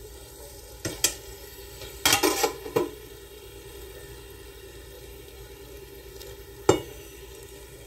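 Fried empanadas being handled with metal tongs: a few sharp clicks and knocks of the tongs against the pan and plate in the first three seconds and one more near the end, over a steady low sizzle of the still-hot frying oil.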